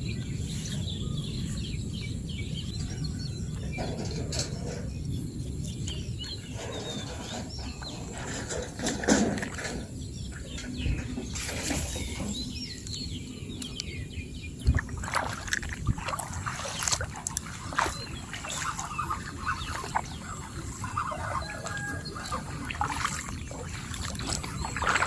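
Outdoor field ambience: a steady low rumble with scattered knocks and clicks, and bird calls now and then.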